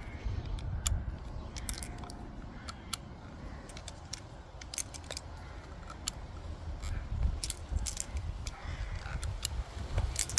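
Irregular small metal clicks and clinks from a Umarex Colt Single Action Army CO2 replica revolver, its cylinder being turned at half cock as the cartridges are pushed out one by one.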